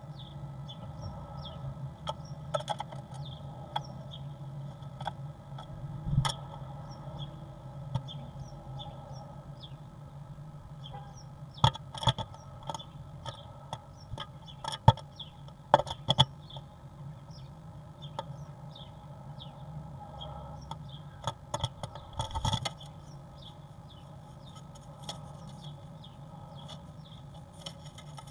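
A great tit arriving at a wooden nest box and moving about inside it: sharp taps, knocks and scratches of its feet and body on the wood, loudest and most frequent in the middle, with another cluster near the end. They sit over a steady low hum, with faint, short, high chirps repeating throughout.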